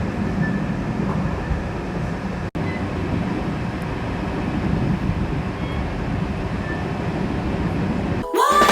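Steady low rumble of a moving train. Music starts just before the end.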